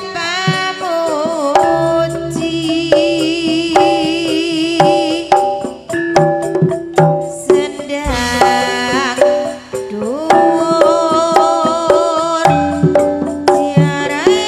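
Live Javanese campursari dance music: a kendang hand drum beating a steady dance rhythm under a melody with a wavering, voice-like line.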